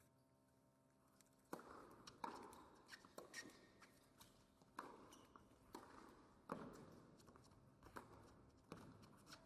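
Tennis rally on a hard court: sharp pops of the ball coming off the racket strings, mixed with its bounces, roughly one a second. They start about a second and a half in.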